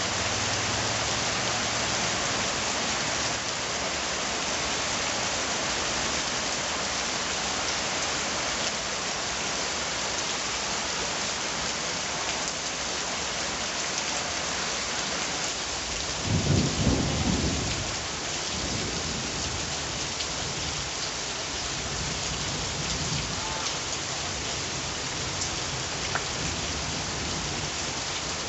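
Steady rain, falling hard enough to make a dense, even hiss. A little past halfway a short, loud low rumble of thunder breaks through, lasting about a second and a half.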